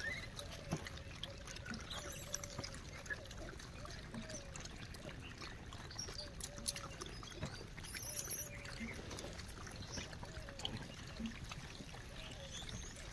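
Gray langurs feeding on the ground: scattered small clicks and rustles as they pick at and chew food, with a run of faint short chirps repeating for several seconds.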